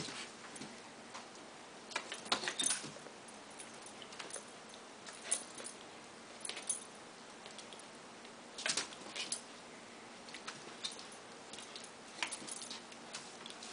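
Bursts of light metallic jingling and scuffling, several times over, as a corgi puppy and a kitten scrabble and wrestle together on carpet against a wicker basket.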